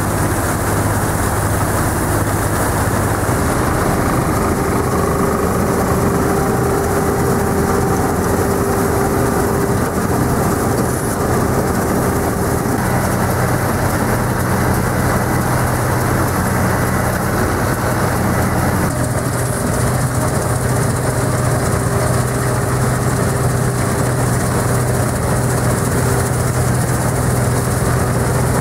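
John Deere 330 combine harvester running steadily under load while harvesting oats, its engine and threshing machinery making a continuous loud hum with steady tones.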